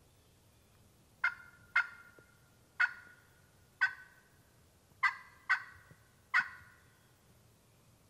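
Seven sharp, loud turkey call notes in uneven groups. Each note breaks off quickly into a short ringing tail.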